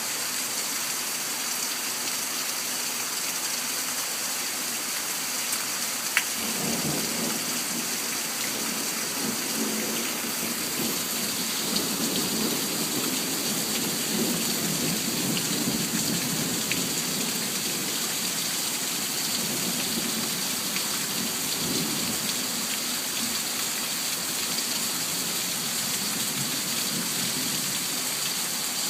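Steady rain with a thunderclap: a sharp crack about six seconds in, then a low rolling rumble that lasts some fifteen seconds before fading back into the rain.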